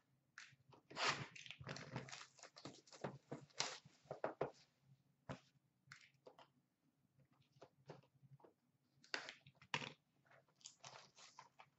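Crinkling, rustling and scraping as hands handle and open a cardboard trading-card box. It is densest in the first few seconds, with scattered crackles and taps after.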